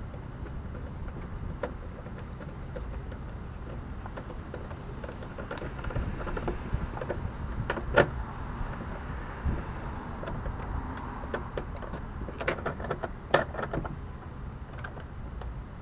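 Clicks and knocks of a car's interior door trim panel and hand tools as the panel is fitted back and its 10 mm screws are put in. One sharp knock about eight seconds in, and a quick run of clicks a few seconds later, over a steady low rumble.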